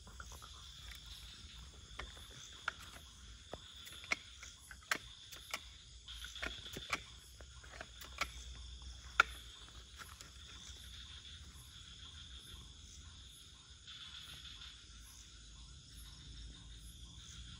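Steady high chirring of night insects, with scattered short sharp clicks and ticks through it, the loudest about nine seconds in.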